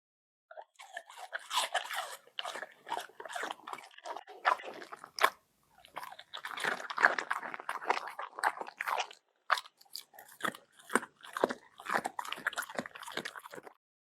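A pet eating, chewing and crunching food in quick, crisp bites, with two short pauses.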